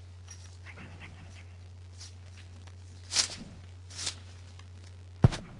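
Steady low electrical hum on an open audio line, with two brief hissing noises about three and four seconds in and a sharp knock near the end.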